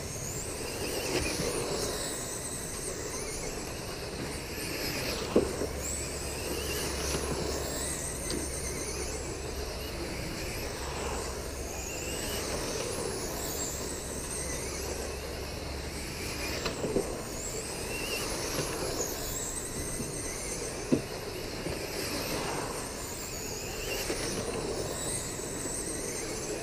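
Radio-controlled late model race cars whining high and wavering, the pitch rising and falling as they lap the dirt oval. A few sharp knocks come through, about five, seventeen and twenty-one seconds in.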